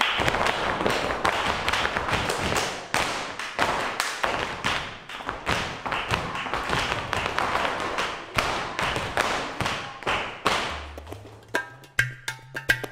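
Flamenco footwork: heeled dance shoes striking the floor in a fast, dense run of taps and stamps, thinning out to scattered strikes near the end as a few low notes come in.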